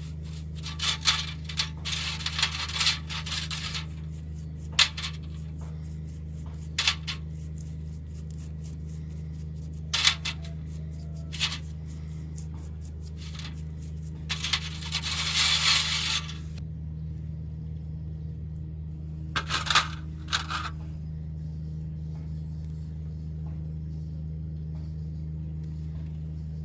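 Metal parts clinking and scraping in short, scattered bursts over a steady low hum.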